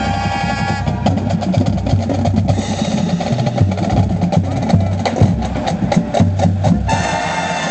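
A marching band's held wind chord cuts off about a second in. The drumline then plays a percussion break of drum hits and sharp stick clicks, thickest a couple of seconds before the end. The full band comes back in just before the end.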